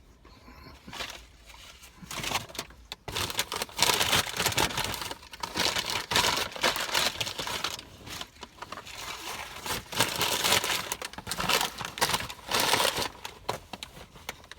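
Fast-food sandwich wrapper being crumpled and handled: an irregular crinkling that grows loud about two seconds in and goes on in uneven spells.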